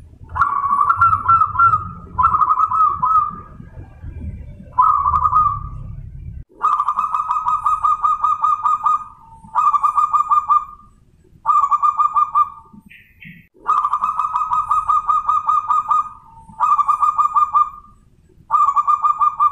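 Zebra dove (perkutut), a cross between Bangkok-bred and local wild stock, cooing its song: about nine trilled coo phrases, each a second or two long, separated by short pauses.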